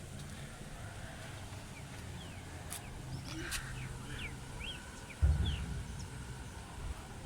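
Quiet outdoor ambience with small birds chirping in short, quick calls that slide in pitch, over a low rumble. A sudden low thump comes about five seconds in.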